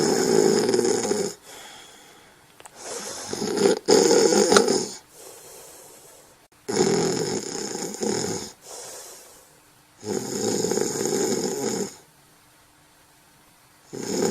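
A sleeper snoring in a steady rhythm: four long snores, one about every three seconds, with quiet breathing gaps between them.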